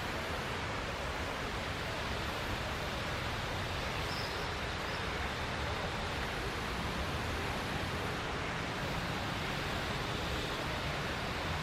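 Steady, even rushing noise with no distinct calls or knocks.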